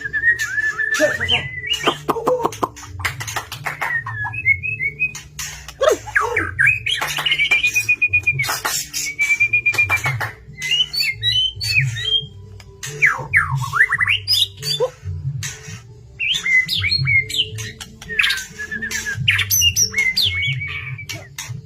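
White-rumped shama (murai batu) singing a long, varied song: clear whistled phrases, rising and falling glides and sharp clicking chatters, over a steady low hum.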